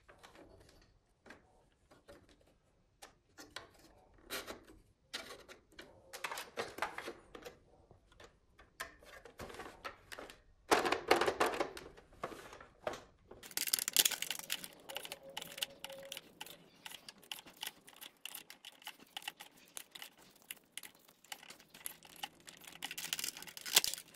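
Plastic clicking and rattling from a toy foam-dart blaster being handled: scattered sharp clicks at first, growing into a dense, almost continuous run of clicks about halfway through.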